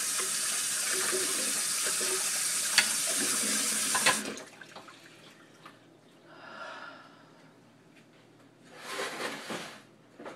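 Kitchen sink tap running hard into the sink for about four seconds, with a couple of knocks, then shut off; a shorter gush of water comes near the end.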